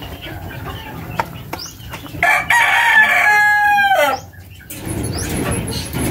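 A rooster crows once, a single call of about two seconds that starts about two seconds in and drops in pitch as it ends.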